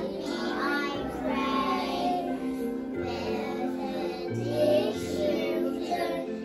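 A class of young children singing a song together with accompanying hand actions, over a musical backing whose low bass notes change about once a second.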